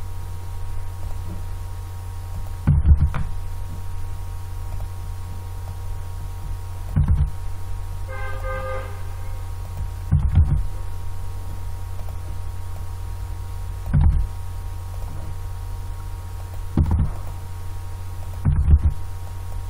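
Steady low electrical hum on the recording microphone, with six soft thumps spaced a few seconds apart and a brief buzzy tone about eight seconds in.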